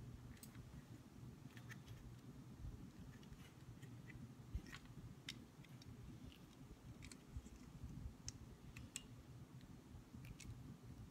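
Near silence over a low room hum, with faint scattered clicks and light taps from hands handling a recurve bow and its string.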